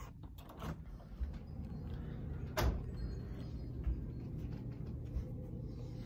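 Phone handling and movement noise while walking through a house: clothing rustle and a steady low rumble, with light clicks and one sharper knock about two and a half seconds in.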